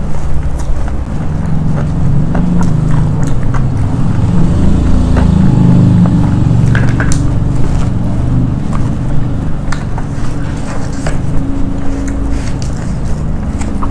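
Close-miked eating by hand: chewing with sharp mouth clicks and smacks scattered through, over a steady low rumble.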